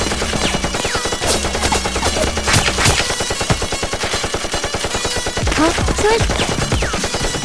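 Rapid machine-gun-style gunfire sound effects, the shots coming in quick dense volleys, over background music.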